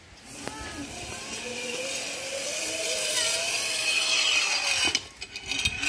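Zip line trolley running along its line as a child rides it: a whirring hiss with a faint pulley whine that grows steadily louder as it nears, then drops off sharply about five seconds in.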